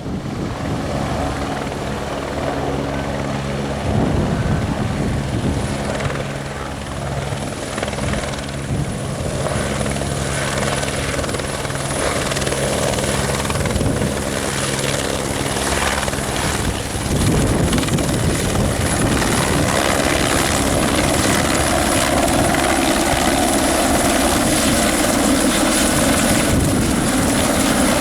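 Aerospatiale AS350B helicopter running close by, with a steady high turbine whine over the beat of its main rotor, buffeted by gusts of strong wind on the microphone. About 17 seconds in, the sound grows louder and fuller.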